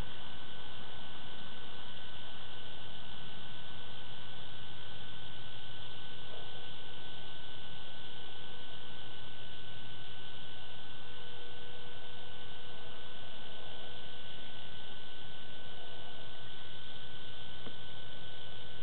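Steady electronic hiss and hum with a constant high-pitched whine, the self-noise of a security camera's audio line, with no distinct event standing out above it.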